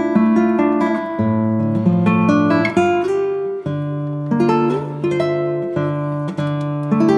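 Background music: an acoustic guitar picking a melody over changing bass notes.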